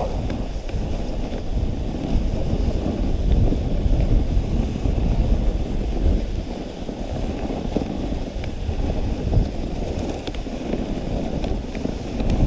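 Dog sled's runners sliding over a packed snow trail: a steady, rough rumble, mixed with wind on the microphone and a few faint ticks.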